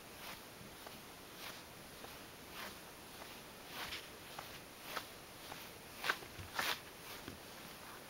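Soft, irregular scuffs and rustles, one every half second or so, with a few louder ones about six to seven seconds in: a ragdoll cat's paws and body moving on a rug as it plays.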